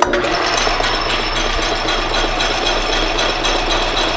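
Atlas 10 metal lathe switched on and running, starting abruptly and then steady, with a faint high whine.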